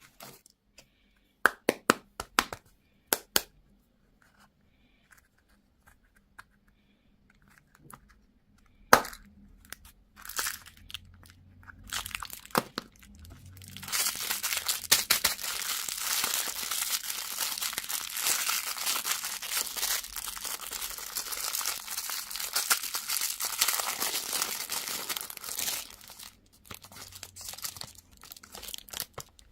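Candy or toy packaging being unwrapped by hand: a few sharp clicks and a loud snap, then about twelve seconds of dense crinkling and tearing of the wrapper, with lighter crinkles near the end.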